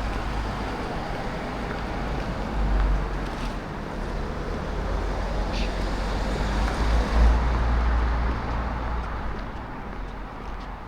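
Road traffic on a town street: cars passing, a steady noise with a low rumble that swells as vehicles go by.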